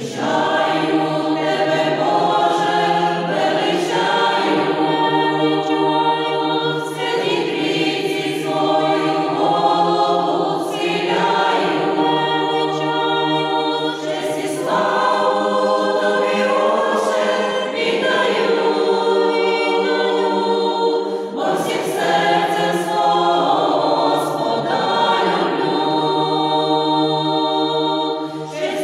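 A Ukrainian folk choir of women's voices singing a song together, in sustained phrases with short breaks between them.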